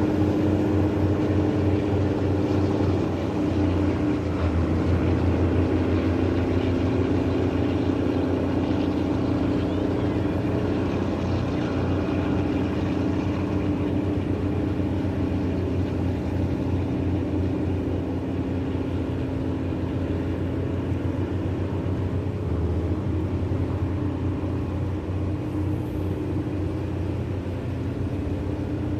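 A tugboat's engine running steadily, a low, even, pulsing drone.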